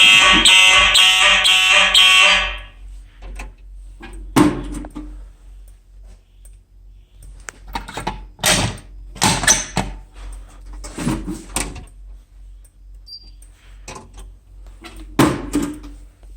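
Simplex 4903 fire alarm horns sounding a steady buzzing tone during an alarm test, cutting off suddenly about two and a half seconds in. Scattered knocks and clicks follow.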